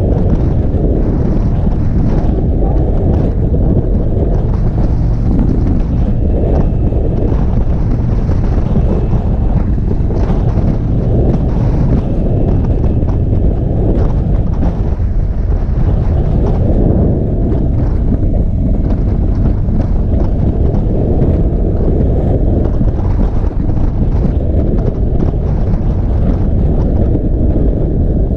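Wind buffeting the camera microphone on a motorcycle riding at road speed, over the steady running of a 2021 Indian Chief Bobber's V-twin engine.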